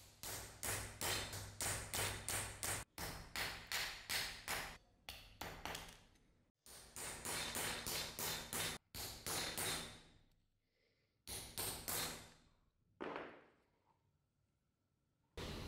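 A small hammer tapping a steel chisel held on a thin brass strip on a small anvil, cutting the brass. The blows come in quick runs of about three to four a second, each with a brief metallic ring. The runs are broken by abrupt cuts, and the last few blows are spaced further apart.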